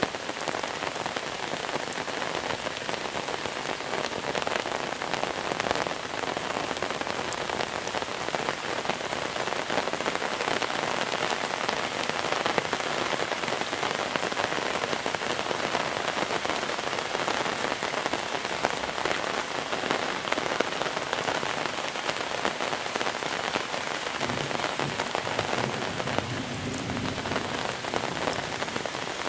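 Steady monsoon rain falling on surfaces, an even dense hiss made of countless small drop ticks. A low rumble comes in near the end.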